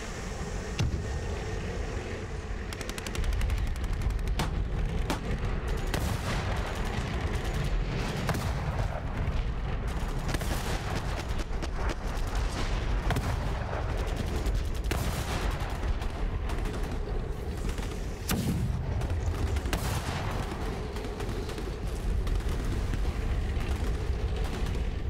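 Gunfire sound effects: rapid machine-gun fire with heavier single shots mixed in, getting louder about three seconds in.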